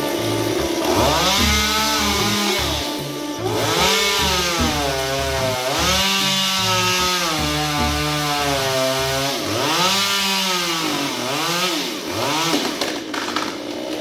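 Chainsaw cutting a branch up in a tree, its engine revving up and dropping back in about five surges.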